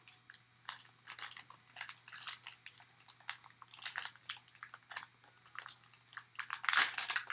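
Foil wrapper of a 2016 Panini Playbook football card pack being handled and pulled open: a run of crisp crinkling crackles, louder and denser near the end.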